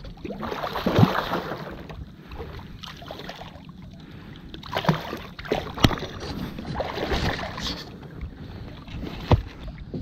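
Water splashing and churning as a hooked smoothhound shark thrashes at the surface beside a fishing kayak, in irregular surges. Two sharp knocks stand out, one about six seconds in and one near the end.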